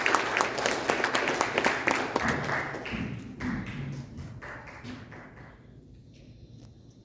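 Audience clapping, many hands at once, thinning out and dying away over about five seconds.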